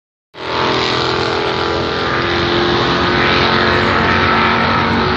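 Loud, steady engine noise from drag-racing cars running at the strip, with a steady hum held underneath.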